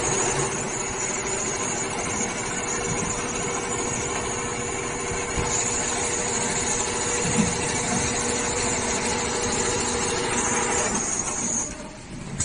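Richpeace double-head automatic sewing machine running, both heads stitching at once: a steady mechanical whir with a high whine that dies away near the end.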